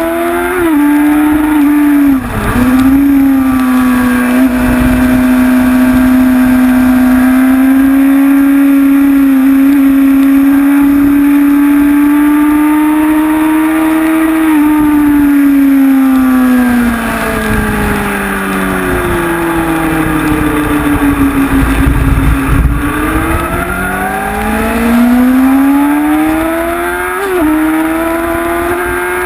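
Honda CBR sportbike's inline-four engine at high revs on track: a gear change about two seconds in, then a long steady pull. Past the halfway point the revs fall away while slowing for a corner, then climb again as it accelerates out, with a brief rev flicker near the end.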